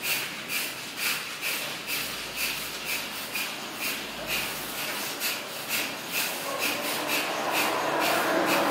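Kapalbhati breathing: short, forceful exhalations puffed out through the nose, about two a second, each pumped from the abdomen.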